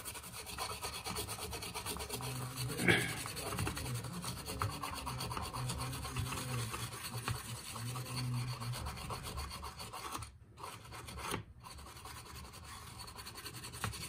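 Scraping and rubbing of hand tools working on a circuit board, with a sharp click about three seconds in.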